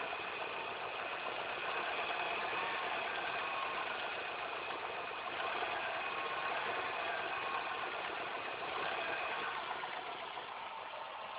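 Car engine idling with a thin, steady high whine over its running. This is the annoying noise left after the timing belt, the accessory belts and the tensioner were all replaced.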